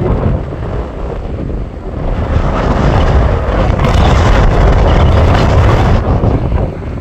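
Strong desert wind buffeting the microphone, a rumbling roar that builds into a louder gust about two seconds in and eases off near the end.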